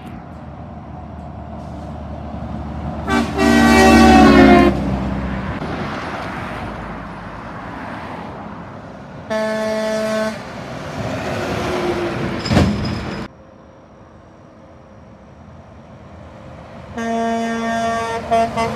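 Trucks sounding their horns as they pass: three blasts, a loud one about three seconds in lasting a second and a half, a shorter one about nine seconds in, and another starting near the end. Between the blasts, the rumble of truck engines and tyres.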